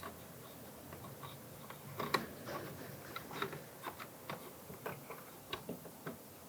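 Irregular small plastic clicks and taps as the door panel's electrical wiring connectors are handled and plugged in, the sharpest click about two seconds in.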